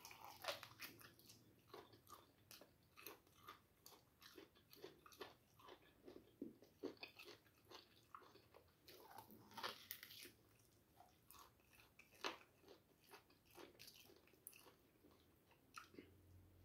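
A person chewing and biting food close to the microphone, with an irregular run of small crunches and mouth clicks.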